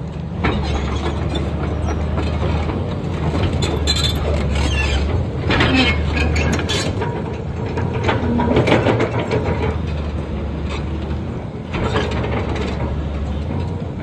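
SANY SY215 excavator's diesel engine running steadily, with repeated metallic clanking and rattling from the machine's moving parts, heaviest about six and nine seconds in.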